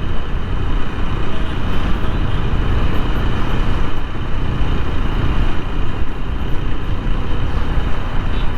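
Steady ride noise from a TVS Apache 160 4V motorcycle under way: wind rushing over a chin-mounted action-camera microphone, mixed with engine and road noise.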